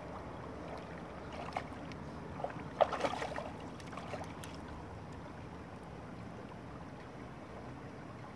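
Shih Tzu splashing in shallow river water as it climbs onto a rock: a cluster of short splashes from about one and a half to four and a half seconds in, the loudest near three seconds, over a steady rush of the river.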